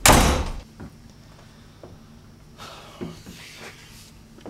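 A wooden room door slammed shut hard, a single sharp bang right at the start that dies away within about half a second, followed by quieter scattered small sounds.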